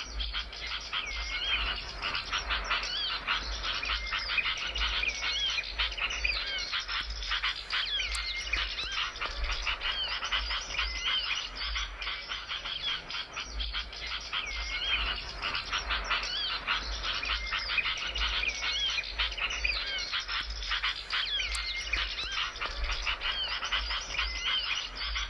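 Small songbirds chirping and twittering rapidly and without a break, a dense high chatter of short notes.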